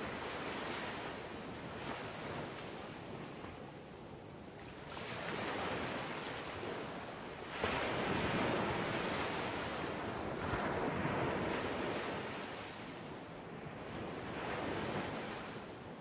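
Ocean surf: waves washing onto a beach in repeated swells, the biggest breaking suddenly about eight seconds in.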